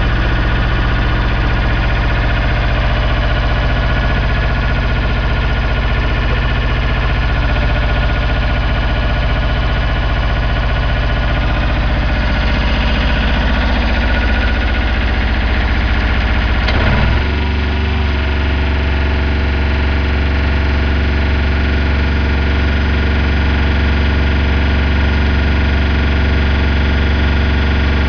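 MOSA TS300 welder generator's engine running steadily. About two-thirds of the way through, its note changes abruptly and settles at a steady, slightly higher pitch.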